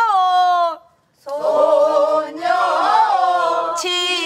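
Pansori singing in a call-and-response lesson. A woman's voice holds a long wavering note and breaks off. After a short pause a group of voices sings the phrase together, and near the end a single woman's voice comes in again with wide vibrato.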